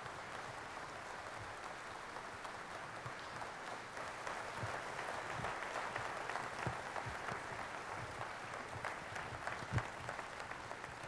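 Large audience applauding steadily, a dense patter of many hands clapping, with a single low thump about ten seconds in.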